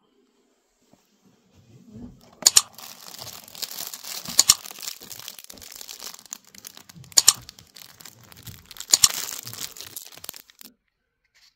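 Plastic wrapper of a Mulino Bianco Camille snack cake crinkling as it is torn open, starting about two seconds in, with four sharp, loud crackles among the steady rustle.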